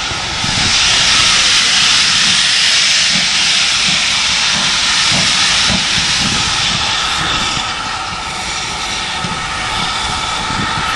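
Steam locomotive blowing a loud, steady hiss of steam from its open cylinder drain cocks as it moves slowly towards the listener. The hiss swells about half a second in and eases after about seven seconds.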